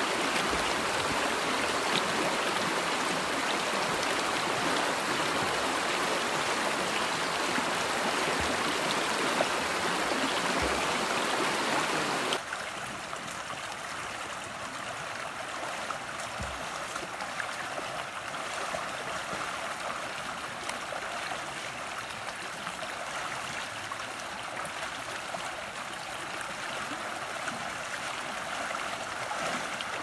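Stream water running over stones, a steady rush. About twelve seconds in it drops suddenly to a quieter, softer flow.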